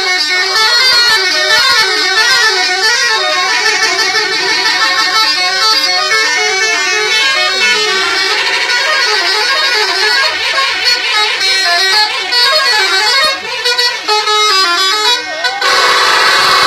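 Bus telolet horn, the multi-tone musical air horn fitted to Indonesian intercity buses, playing a loud stepping melody over and over. Near the end it switches to a held multi-tone blast.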